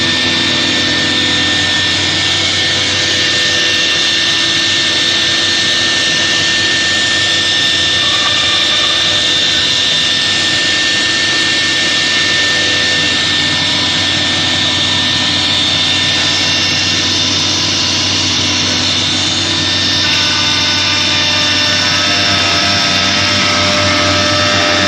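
SGMNC 1325 4-axis wood CNC router with its swing spindle running and cutting wood: a steady high whine over a dense hiss. The mix of tones shifts about twenty seconds in.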